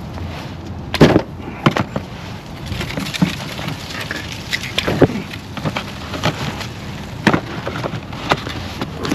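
Irregular knocks, clicks and crackles of new ignition coils and their packaging being handled and unboxed, with the loudest knock about a second in.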